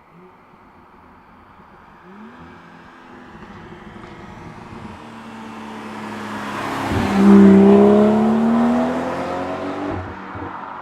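BMW 440i's turbocharged 3.0-litre straight-six with M Performance exhaust accelerating past, revs climbing as it approaches. There is a brief break with a sharp crack about seven seconds in, at its loudest, then the revs climb again as the sound fades.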